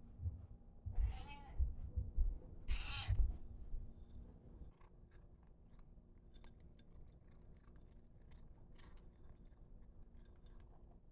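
A domestic cat meowing twice, about two seconds apart, then faint scattered clicking and ticking for the rest of the time.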